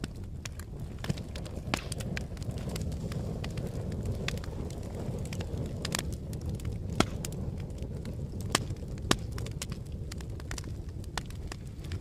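Fire crackling: a steady low rumble of flames with irregular sharp snaps and pops, a few of them louder than the rest.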